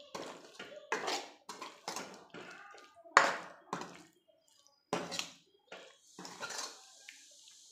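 Steel ladle scraping and knocking against a metal kadhai while stirring a thick vegetable sabji, in about nine uneven strokes, the loudest about three seconds in. A faint hiss near the end.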